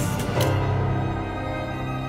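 Figure skater's free skate program music played over the arena sound system: sustained low notes under held higher tones, with a few sharp clicks in the first half second.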